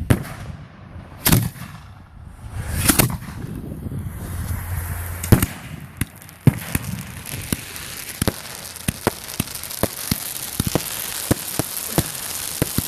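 Fireworks going off: a handful of loud sharp bangs in the first six or seven seconds, then a dense run of small crackling pops over a steady hiss.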